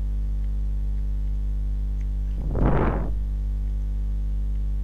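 Steady electrical mains hum on the recording, with one brief rush of noise about two and a half seconds in.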